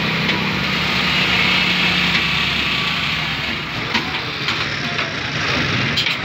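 Heavy diesel engine noise from an excavator moving a truck loaded with logs. A low engine drone fades about two seconds in, leaving a broad rumble with a few short knocks near the end.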